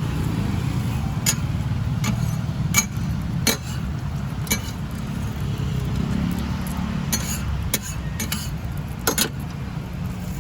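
Metal cooking utensils clinking and tapping against pans and trays at a street food frying stall, about nine sharp clinks at uneven intervals over a steady low rumble.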